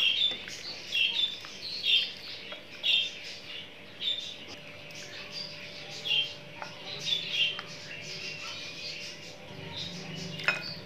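A small bird chirping over and over, short high chirps about once a second that pause for a couple of seconds near the end. A few faint clicks run underneath.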